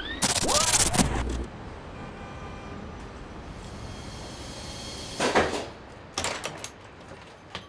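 A short electronic glitch sound effect with rising tones, then steady city street traffic hum. From about five seconds in come a few rattles and clicks of a shop door being opened.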